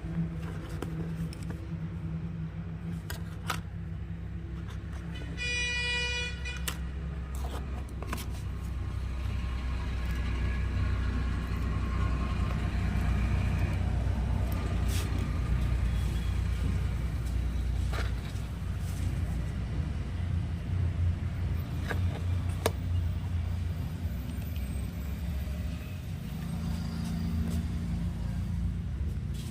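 Steady low rumble of passing road traffic, with one horn toot lasting about a second, some six seconds in. A few light clicks are scattered through it.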